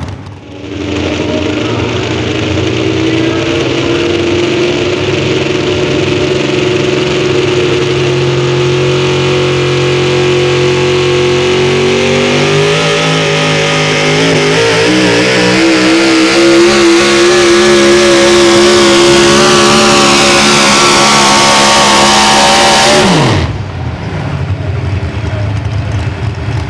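A pulling vehicle's engine running flat out under load. Its pitch climbs from about halfway through, then drops sharply about three seconds before the end as the throttle is cut, leaving a quieter, lower engine sound.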